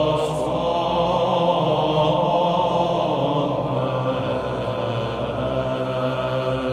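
Background music: a slow vocal chant with long, held notes.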